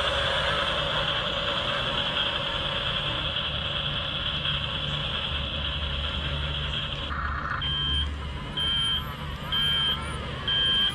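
Double E 579 RC toy bulldozer running, its electric drive motors humming low. Its sound-effect speaker plays a steady high-pitched tone that cuts off about seven seconds in. Then it gives short reversing beeps about once a second, the toy's signal that it is driving backward.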